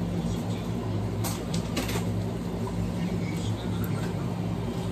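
A few brief clinks of metal cutlery over a steady low mechanical hum, about one and a half to two seconds in.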